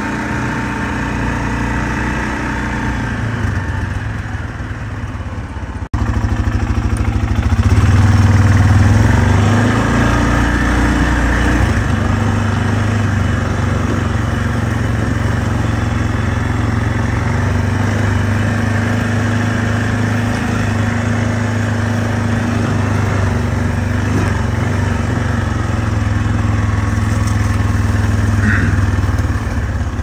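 Four-wheeler (ATV) engine running as it is ridden along, steady apart from a brief break about six seconds in, with the revs rising for a few seconds soon after.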